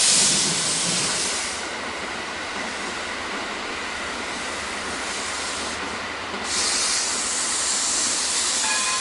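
Steam locomotive letting off steam: a loud hiss with a puff at the start that dies down within about a second and a half, then a steady hiss again from about six and a half seconds in.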